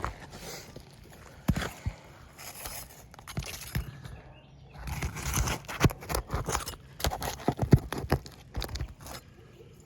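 Roofing nails being pried out from under old, brittle asphalt shingles: scraping with many sharp clicks and knocks of the tool against nails and shingle. The clicks are sparse at first and come thick and fast in the second half.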